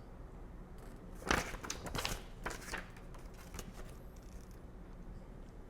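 Paper rustling as a printed instruction manual is handled and opened, in a few short strokes about a second in, then faint handling clicks, over a low steady hum.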